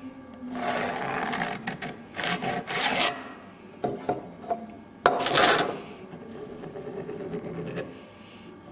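Ballpoint pen scratching marking lines onto a pine timber blank along a steel square, with the square rubbing and knocking on the wood. Several scratchy strokes come about a second in, around two to three seconds in, and a loudest one starting sharply about five seconds in, with a few light knocks between.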